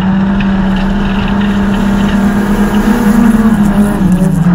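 Folkrace car's engine pulling hard under throttle as the car accelerates, heard from inside the stripped cabin. The pitch climbs slightly, then dips a little near the end.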